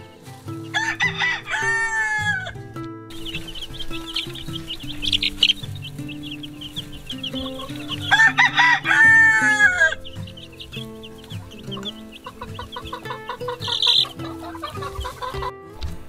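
A rooster crows twice, about a second in and about eight seconds in, each a long arching call. Between and after the crows, a brood of young chicks peeps rapidly and continuously in high notes.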